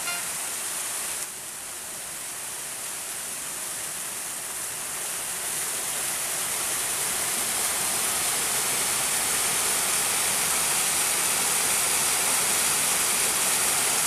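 Waterfall: a steady rush of water pouring over rocks into a pool, growing slowly louder.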